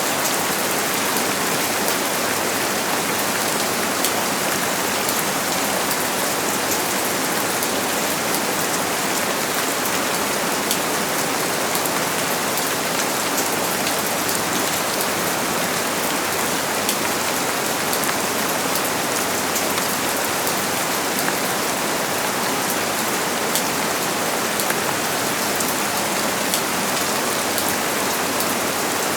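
Steady rainfall, a dense even hiss of rain falling on surfaces with many fine drop ticks.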